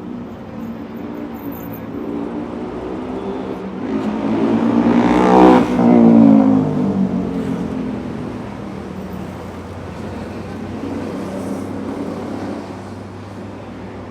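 A motor vehicle passing close by on a city street over steady traffic noise: its engine note swells to a peak about halfway through and drops in pitch as it goes past, then fades; a second, fainter vehicle passes near the end.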